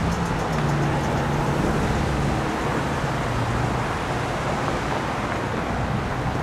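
Road traffic: cars and a van driving by, engines and tyre noise in a steady wash with a low engine hum.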